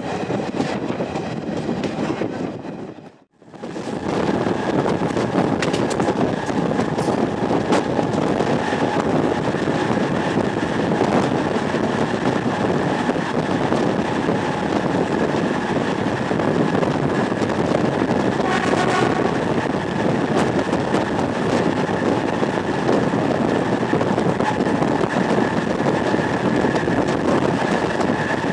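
Train running noise, with wheels rumbling and clattering on the rails. After a brief drop-out about three seconds in, it is a long freight rake of BOXNS open wagons passing close by, with a steady high thin whine over the rumble. A short pitched tone sounds about two-thirds of the way through.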